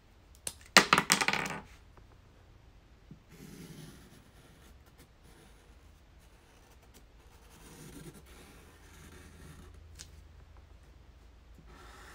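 A brief loud clatter of small hard objects about a second in, then a felt-tip marker scratching on paper in short strokes as it traces around a hand, with a single click near the end.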